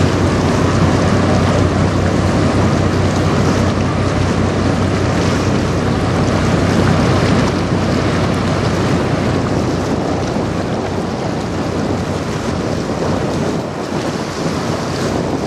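Steady low drone of the articulated tug-barge Dirk S. VanEnkevort's engines under a rush of water and wind noise on the microphone, growing gradually fainter over the second half as the tug and its barge move off.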